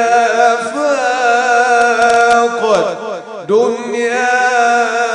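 A man's voice singing an Islamic devotional ibtihal into a microphone, drawing out long melismatic notes with wavering ornaments, with a brief break for breath about three and a half seconds in.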